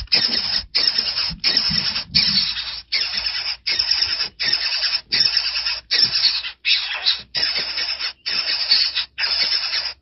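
Nestlings in the nest begging: a steady series of harsh, rasping calls, about one and a half a second.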